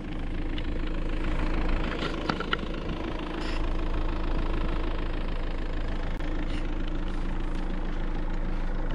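Land Rover Freelander engine running steadily at low speed, a constant low hum, with a few faint short clicks between about two and three and a half seconds in.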